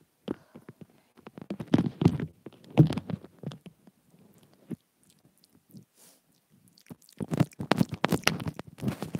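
Teeth nibbling on a wired earphone's inline microphone, picked up by that same microphone right against the mouth: close, crunchy clicks and scrapes in bursts. After a near-quiet gap in the middle, denser nibbling starts again about seven seconds in.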